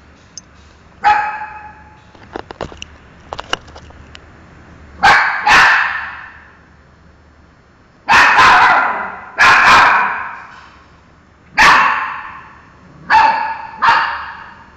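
Young miniature schnauzer barking: about eight sharp barks, single and in pairs, spaced a second or more apart. Each bark has a long echoing tail in a hard, tiled room. A few light ticks fall between the first barks.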